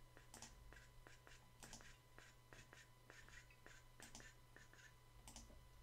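Faint computer mouse clicks, about three to four a second, placing points while drawing a curve in CAD software, over a low steady electrical hum.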